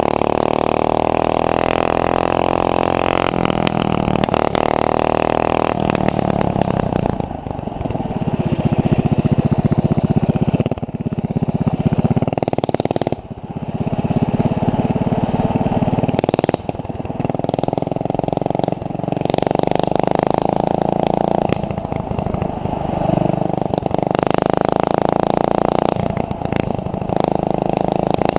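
Straight-piped 190cc overhead-cam single-cylinder mini bike engine running loud, revved up and dropped back several times.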